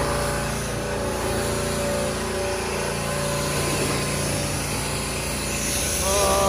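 Pressure washer's small engine running steadily, with the hiss of the spray. A short voice-like cry rises over it near the end.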